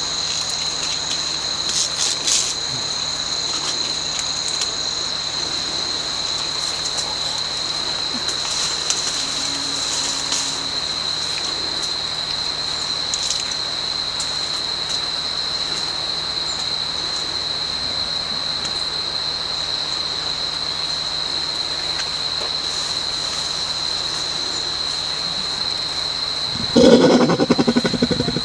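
Steady high-pitched drone of insects such as crickets, with a few faint rustling clicks. Near the end a loud, low, rapidly pulsing sound lasts under two seconds.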